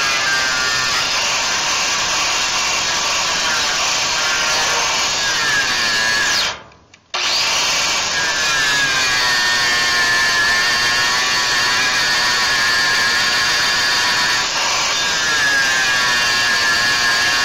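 A power tool running hard on the steel frame rivets of a 1946 Ford truck, a steady loud whine that sags and climbs in pitch as the tool is loaded. It cuts out abruptly about six and a half seconds in, then starts again.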